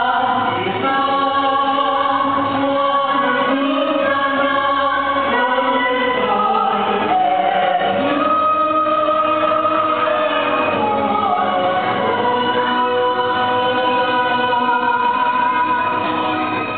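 A group of voices singing a song in long held notes over backing music.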